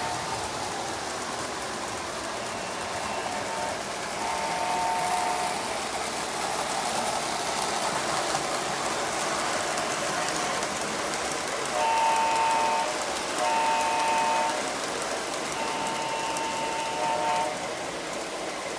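O gauge toy trains running on the layout's track, a steady rushing noise, with the electronic diesel horn of Lionel CN FP4 locomotives sounding several times. The last three horn blasts, in the second half, are the loudest, and the final one is the longest.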